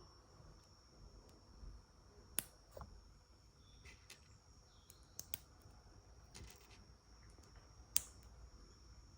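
Plastic Lego pieces being handled and pressed together: a scattering of small sharp clicks and taps, the loudest about two and a half seconds and eight seconds in.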